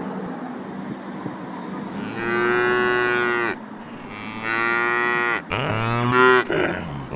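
Three moos after about two seconds of background street noise: a long, steady one, then two shorter ones that dip and rise in pitch, the last the loudest. They serve as the cow characters' dialogue, greeting each other.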